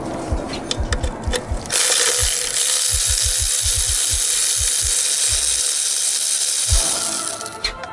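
Power ratchet running for about five seconds, backing a bolt out of the engine's front cover, then stopping. A steady low beat of background music runs under it.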